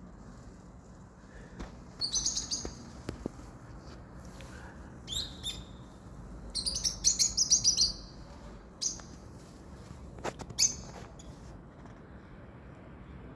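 Parrots chirping in several short bursts of rapid high calls, the longest lasting over a second near the middle. A few sharp clicks come about three-quarters of the way through.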